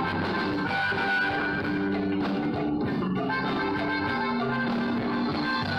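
Live Tejano band playing an instrumental passage: electric guitar and accordion over keyboard and drums, with a steady beat and no singing.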